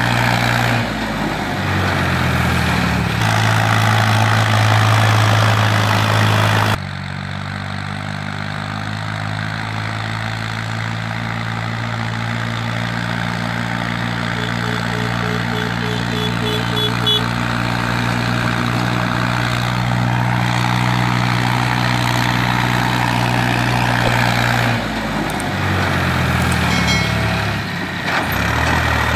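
New Holland 3630 tractor's three-cylinder diesel engine running steadily under load as it pulls two trolleys laden with sugarcane, a low, even drone. About seven seconds in the level drops abruptly, and it changes again near the end.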